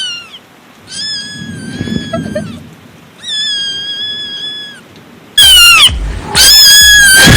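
Cat meowing: two long, high meows, then louder, distorted meows near the end.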